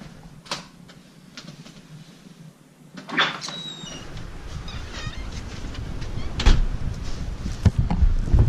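A door latch clicks and the door squeaks open about three seconds in, then blizzard wind buffets the microphone, growing louder toward the end.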